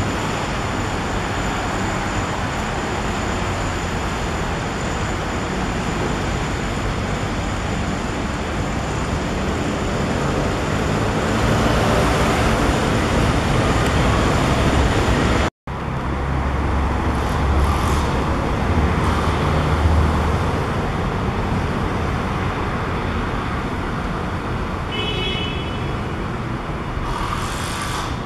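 An airplane passing overhead: a steady roar that swells to its loudest about halfway through, then breaks off abruptly. A low rumble follows, with a short high-pitched tone about three-quarters of the way in.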